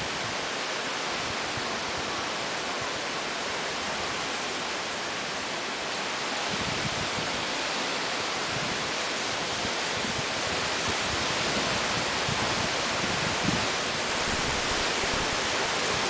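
Typhoon rain and wind: a steady hiss of heavy rain, with gusts of wind swelling and rumbling low from about six seconds in.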